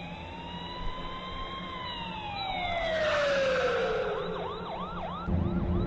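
Emergency vehicle siren: a long wail that rises, holds and then slowly falls, overlapped from about halfway by a fast yelping siren cycling about three times a second.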